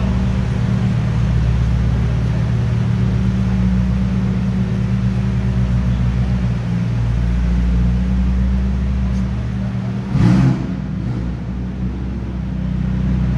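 Ferrari 488's twin-turbo V8 idling low and steady as the car creeps forward, with one short rev about ten seconds in.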